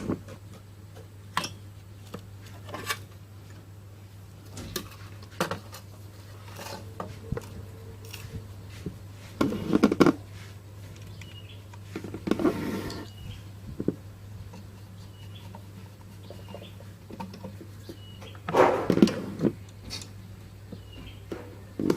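Scattered clicks, taps and rustles of small parts and hand tools being handled on a workbench while new IGBT transistors are fitted into an inverter welding machine, with a few louder bouts of handling about 10, 12 and 19 seconds in, over a steady low hum.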